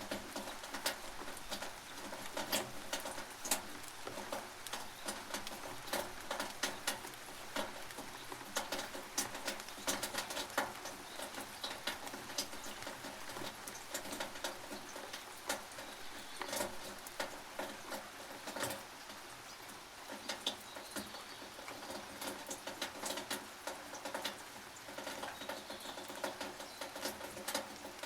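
Rain falling on a tin roof: a dense, irregular patter of drops hitting the metal, with many sharp ticks from single drops.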